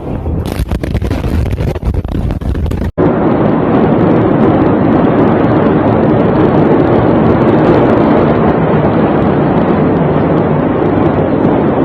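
Loud crackling noise for about three seconds, then a sudden cut to a steady, very loud rushing roar without pitch that overloads the microphone.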